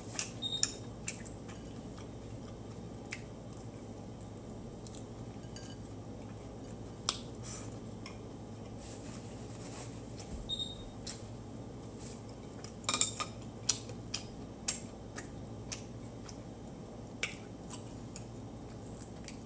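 Eating sounds at a dinner table: scattered small clicks and taps from chopsticks and dishes, with chewing, over a steady low room hum.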